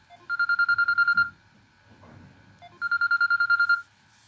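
A telephone ringing twice. Each ring is about a second long: a high tone trilling rapidly, with a gap of about a second and a half between the rings.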